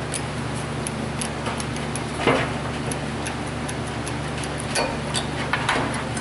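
Light metallic clicks and a few knocks as worn disc brake pads are worked free of the caliper bracket by hand, over a steady low hum.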